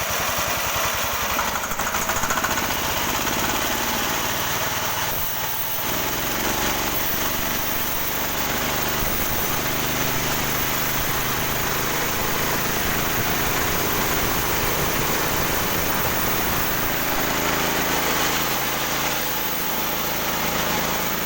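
Small engine-driven sawmill running through a test cut, with an engine note that shifts as the load changes, around five seconds in and again near the end.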